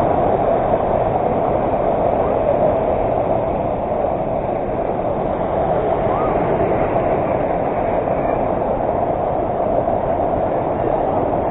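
Waterfall: water falling and rushing in a loud, steady, unbroken noise.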